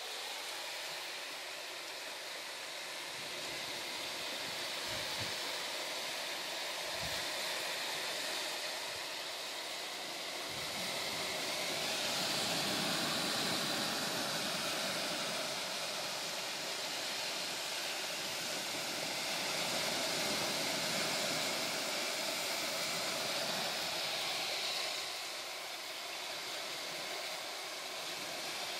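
Steady rushing outdoor noise at the seashore, growing louder around the middle and easing a few seconds before the end, with a few low bumps early on.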